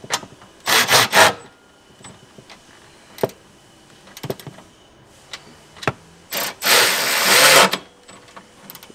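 Cordless ratchet running in short bursts to drive a bolt home: three quick spins about a second in, then one longer run of over a second near the end, with a few sharp clicks in between.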